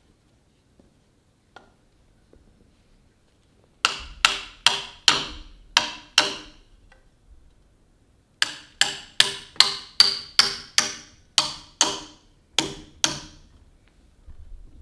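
Hammer driving nails to fix a wooden lath to the sawn end of an oak trunk: two quick runs of sharp blows, about three a second, the first of about seven blows and the second, after a short pause, of about fourteen.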